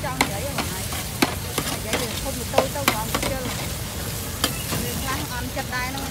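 Street-food cooking: food sizzling in a pan while a metal utensil stirs it, clinking sharply and irregularly against the pan a few times a second.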